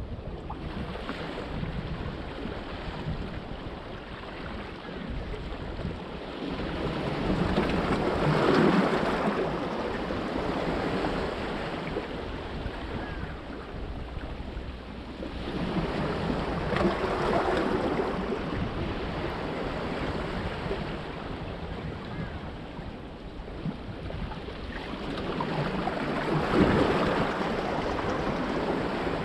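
Small sea waves breaking and washing among the large stones of a rock breakwater, swelling three times about nine seconds apart. Wind buffets the microphone with a low rumble.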